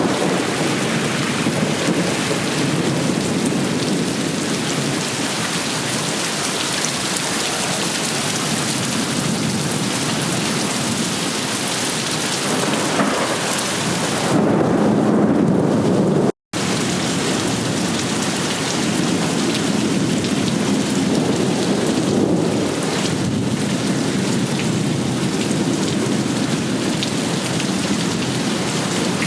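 Heavy rain pouring down in a steady, dense hiss, with a swell of deeper sound a little past halfway. The sound cuts out completely for a split second just after that swell.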